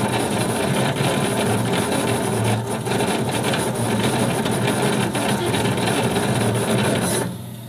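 CNC CO2 laser engraver running as it marks a black oxide steel socket: a steady, loud mechanical buzz and hiss from the machine. It cuts off suddenly near the end, leaving a faint steady hum.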